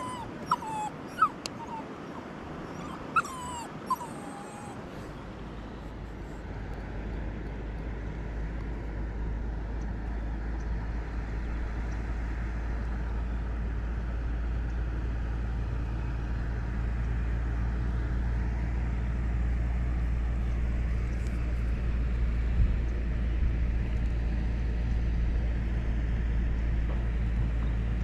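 A small dog whimpering, with a few short high yips, over the first four seconds. After that a steady low rumble runs on.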